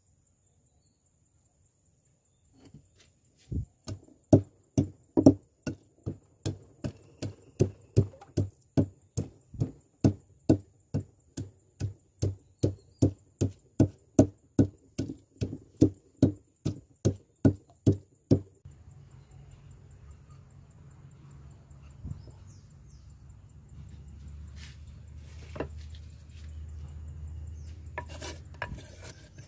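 Wooden pestle pounding garlic cloves in a wooden mortar: a steady run of sharp knocks at about two strokes a second that stops about two-thirds of the way through. A softer low rubbing with a few light knocks follows.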